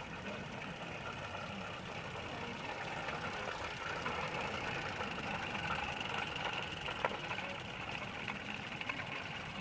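Small 16mm-scale live-steam locomotive running, a steady hiss with rapid fine exhaust beats. A single sharp click about seven seconds in.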